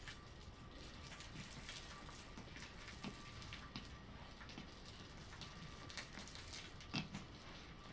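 Faint scuffling and patter of a small dog's paws and body on a quilted mat as she turns and tussles with a puppy, with scattered soft taps and one sharper tap about seven seconds in.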